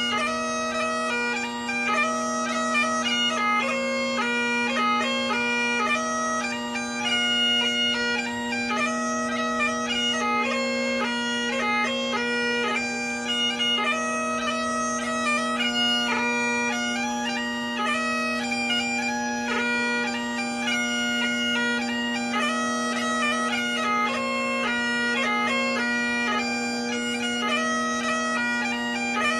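Highland bagpipe playing a dance tune over its steady, unbroken drone.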